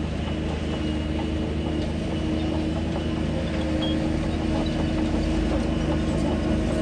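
Diesel engine of a Shantui DH17 bulldozer running steadily, with a few faint ticks over it.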